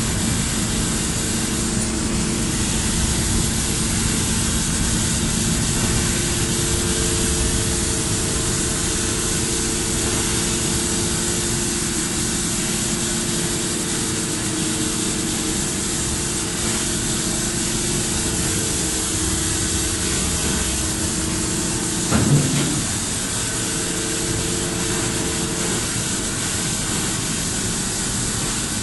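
Steady running drone of the motor ferry Prins Johan Friso's machinery: a hum with several held tones over a hiss. There is a single short thump about 22 seconds in.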